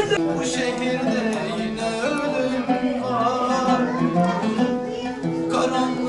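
Live oud music: plucked strings holding steady notes, with a man singing along.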